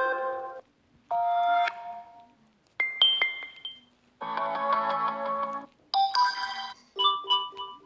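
A run of short preset phone tones from a Samsung Galaxy A20, played one after another. There are about six different melodic chimes, each lasting about a second, with brief silences between them.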